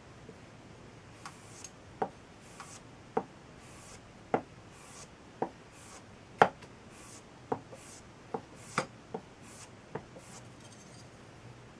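Chisel blade being stroked repeatedly on a leather strop: faint swishes, each with a sharp click roughly once a second as the blade meets the strop.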